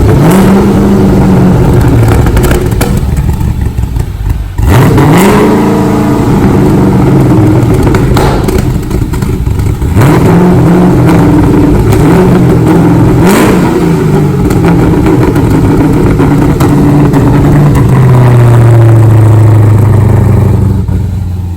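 LS V8 swapped into a Mazda RX-7 FD, revved again and again on its first run after the rebuild. The pitch sweeps up and falls back each time, then holds steady at a raised speed near the end before dropping. To the owner it sounds like a mini Corvette.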